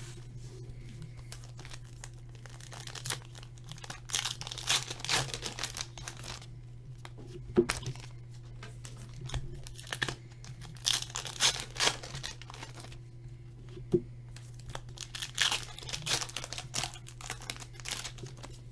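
Foil card-pack wrappers torn open and crinkled in bursts, with a few sharp taps between them, over a steady low hum.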